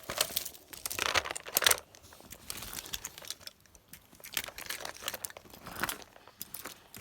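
Plastic fidget toys being handled and passed over, with irregular crinkling and clicking, busiest in the first two seconds.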